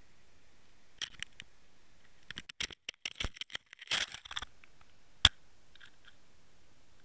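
Underwater camera housing knocking and scraping as the camera shifts and tips over on the rocky lake bottom. Scratchy clicks and rattles start about a second in and come thickest around three to four seconds. One sharp click, the loudest sound, follows a little after five seconds.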